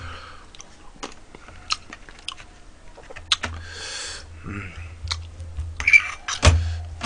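Close-miked eating: chewing with scattered light clicks and taps of a metal spoon against a bowl, and a louder knock about six and a half seconds in.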